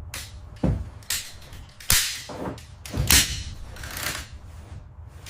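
A series of sharp knocks and clacks of parts and tools being handled while motorcycle fairings are taken off, about eight of them, irregularly spaced, some with a brief scraping tail.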